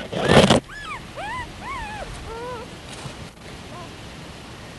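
Young puppies whimpering: about five short squeals in quick succession, each rising then falling in pitch, then a couple of fainter ones. A brief loud burst of noise comes first.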